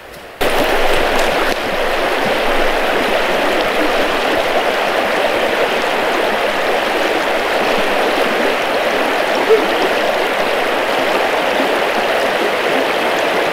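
Steady rush of a small river's current, running high with spring water; the sound comes in abruptly about half a second in and then holds even.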